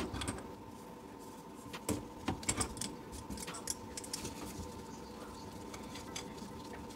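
Scattered light clicks and rattles of braided steel supply hoses and their metal fittings being handled with gloved hands, with a cluster of them about two seconds in, over a faint steady hum.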